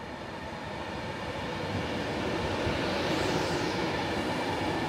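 Avanti West Coast Class 390 Pendolino electric train running into the platform, a rumble and rush that grows louder as the carriages draw alongside. A high whine rises and falls about three seconds in.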